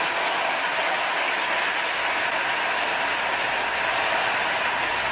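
Heavy wind-driven rain pouring down in a violent storm, with storm wind: a steady, dense hiss.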